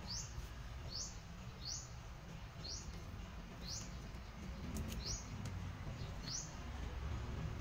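A bird chirping repeatedly: short, high, rising chirps roughly once a second, heard faintly.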